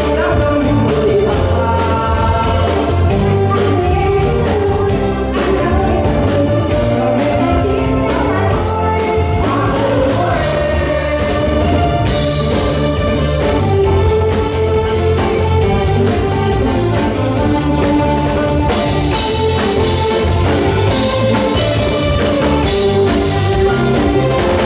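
Music with singing over a steady beat and strong bass.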